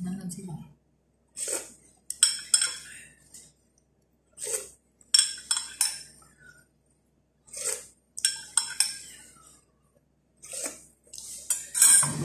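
A spoon stirring coffee in a glass jar, clinking against the glass in short clusters about every second or so, each clink ringing briefly.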